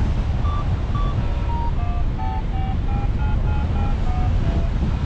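Wind rushing over the microphone in paraglider flight, with a paragliding variometer beeping in short tones at shifting pitch, about three a second, from about half a second in until near the end. Interrupted beeps like these are how a variometer signals that the glider is climbing in lift.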